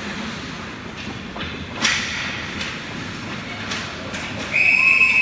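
Hockey sticks and puck knocking in a scramble at the net, several sharp clacks, the loudest a little under two seconds in. Near the end a referee's whistle blows one long steady blast, stopping play for a penalty.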